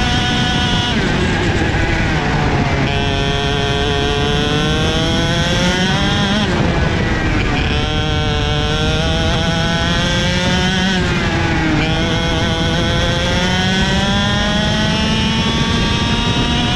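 KZ shifter kart's two-stroke engine at racing revs, its pitch climbing steadily under acceleration and dropping sharply twice as the revs fall, with the rush of wind and road noise beneath.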